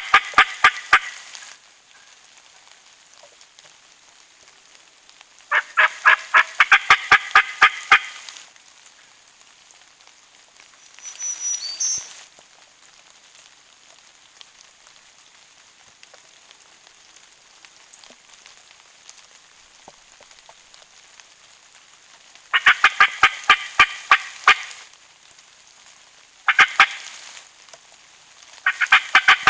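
Wild turkey gobbler gobbling hard and repeatedly: five loud rattling gobbles, the second one long and drawn out, with a steady faint hiss of rain behind them.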